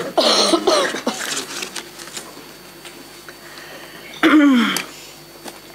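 A voice in a short burst near the start and again about four seconds in, with quiet room tone and a few faint clicks between.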